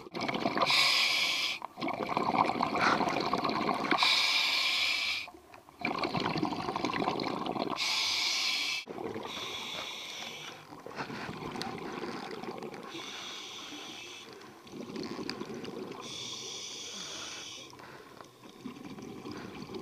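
Scuba regulator breathing underwater: about six loud bursts of exhaled bubbles every few seconds, each lasting a second or so, with gurgling from the regulator between them.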